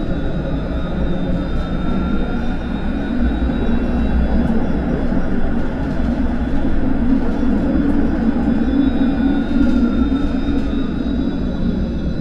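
Vario LF2+ tram running along the track: a steady rumble of wheels on rail, with faint high tones that rise and fall.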